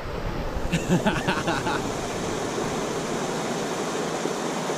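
Steady rush of river rapids, with a brief indistinct shout about a second in.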